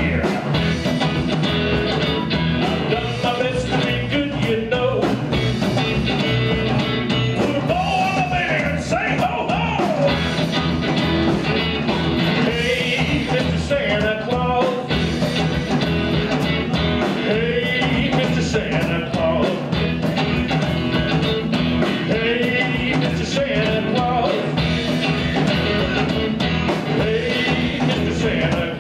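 Live blues-rock band playing: electric guitar, bass guitar and drums, with a lead line of notes that bend up and down in pitch, likely from a harmonica played cupped to a microphone.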